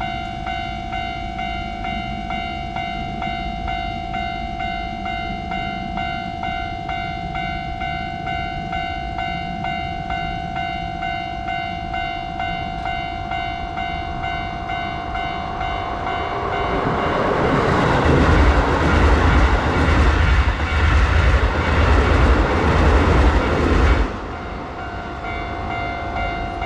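A Japanese level-crossing warning bell rings with a repeating electronic ding. Then a Keisei Main Line train passes through the crossing: its rumble and wheel noise build from about two-thirds of the way in and are loud for about six seconds. The train noise cuts off abruptly and the bell carries on.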